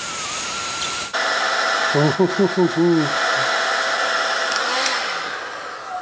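Electric heat gun blowing hot air: a steady rushing with a thin motor whine, which changes abruptly about a second in and fades away near the end.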